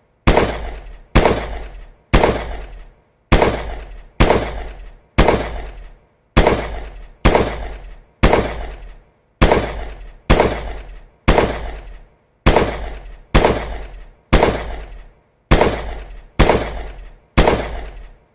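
Gunshot sound effect: single shots fired at an even pace of about one a second, each a sharp crack with a fading tail.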